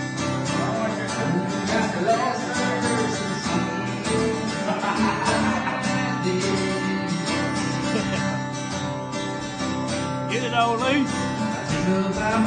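Acoustic guitar strummed and picked live, an instrumental stretch of a country song between sung lines.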